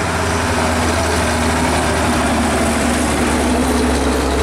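Diesel engine of an old Mitsubishi Fuso truck running steadily under load as it pulls through a bend close by, a loud, even drone with a strong low hum.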